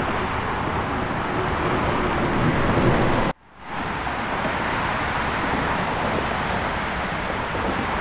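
Steady roar of traffic on a highway overpass overhead. It cuts out abruptly a little over three seconds in, then a similar steady roar picks up again.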